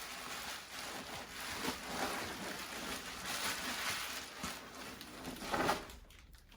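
Rustling and light handling noises from a Smart Doll's packaging being opened and unwrapped, with small irregular clicks and crinkles.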